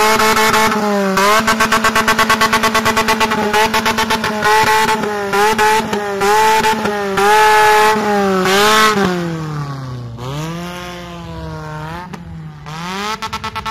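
Straight-piped Toyota VVT-i engine in a modified Daihatsu Charade hatchback, revved hard and held at a steady high pitch while stuttering rapidly on and off, as at the rev limiter. Near the end the revs drop and climb again as the car pulls away.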